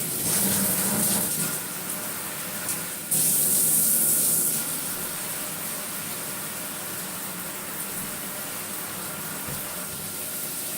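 Water spraying steadily from a combo shower head, fixed and handheld heads both running, with a rushing hiss that gets louder for about a second and a half around three seconds in.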